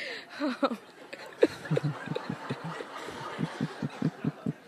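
People chuckling and laughing softly in quick short pulses, picking up about a second and a half in.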